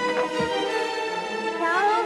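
Background music from a drama score: sustained string notes, with a short upward slide in pitch near the end.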